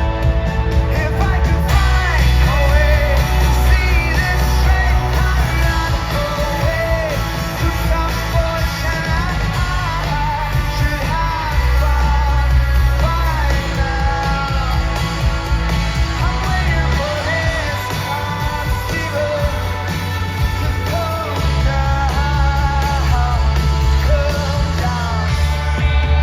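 Live rock band performance: a singing voice carries the melody over heavy bass and guitar.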